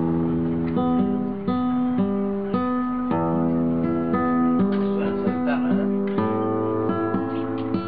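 Acoustic guitar strummed in a steady rhythm, about two chords a second, with the chords changing as it goes.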